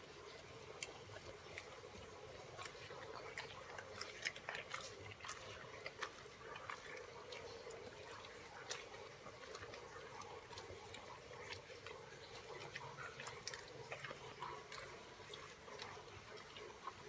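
Rough Collie chewing raw fish: faint, irregular clicks and smacks of its mouth and teeth, with a few louder ones about four to six seconds in.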